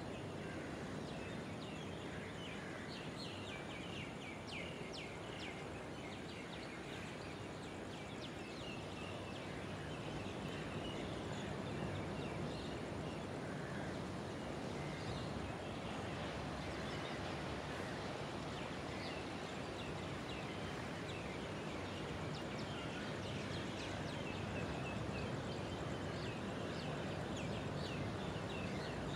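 Outdoor night ambience: a steady hiss with many short, high chirps or calls scattered throughout, some coming in quick clusters.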